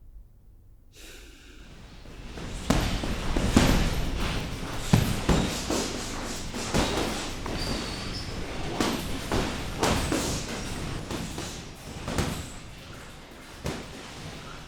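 A run of irregular thuds and slams over a noisy background, starting about two seconds in.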